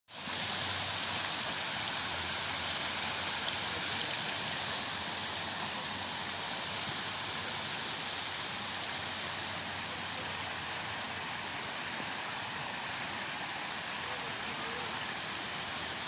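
Shallow river running over a rocky riffle: a steady rush of splashing water.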